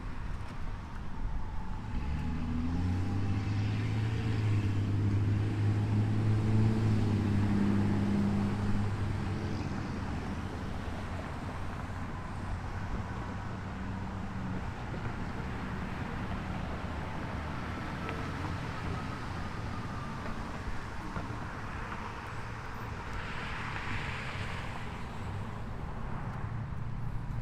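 A motor vehicle engine running close by, loudest for several seconds early on and then dropping to a steadier, quieter drone, with traffic noise around it.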